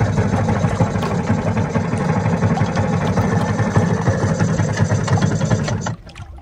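Small outboard motor on an inflatable dinghy running steadily at low speed, then cut off abruptly about six seconds in so the dinghy can coast up to the anchored yacht.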